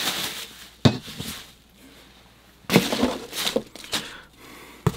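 Items and packaging being handled: rustling, with a sharp click about a second in and a cluster of rustles and knocks around the middle.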